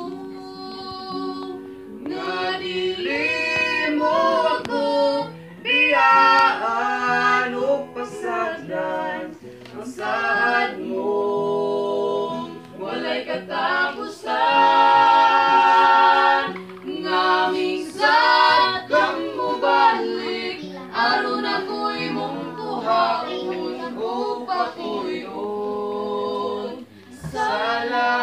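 A small group of voices, a woman's, a teenage boy's and a girl's, singing a hymn together in harmony.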